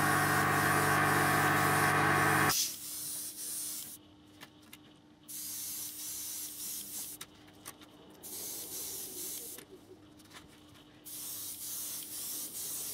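Iwata Eclipse HP-CS airbrush spraying thinned paint in four short bursts of hiss with brief pauses between. For the first two and a half seconds a louder, steady humming hiss runs, then cuts off suddenly.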